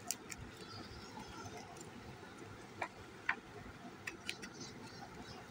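Stiff glossy pages of children's write-and-wipe books being handled and turned by hand. Scattered light taps and clicks come at irregular intervals, a few near the start and a cluster past the middle.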